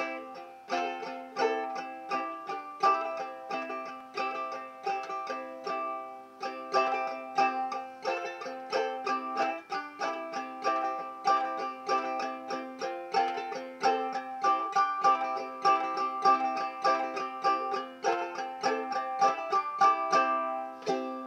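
Banjo ukulele played in a simple clawhammer strum: quick, even strums of ringing chords, stopping near the end.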